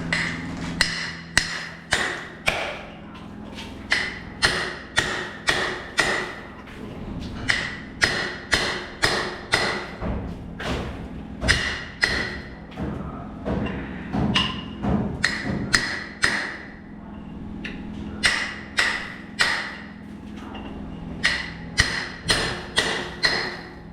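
Hammer driving a steel chisel into the wooden door: sharp strikes in runs of several, about two a second with short pauses between runs, each strike carrying a brief metallic ring.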